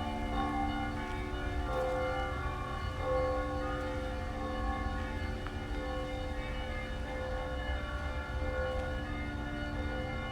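Russian Orthodox church bells ringing: several bells at different pitches sound together and overlap, their tones ringing on. A low steady rumble runs underneath.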